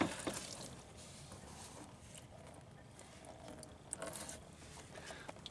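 Light handling knocks of a plastic coolant overflow bottle, with a faint trickle of coolant draining out of it into a drain pan about four seconds in.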